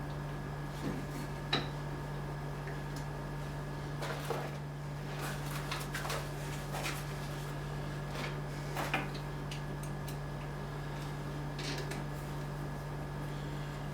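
Scattered light clicks and knocks of small hard objects being handled, a few at a time, over a steady low electrical hum.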